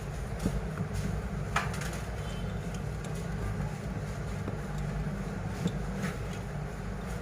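Steady low background rumble with a few light, sharp clicks and taps from small hand tools working on a smartphone during disassembly.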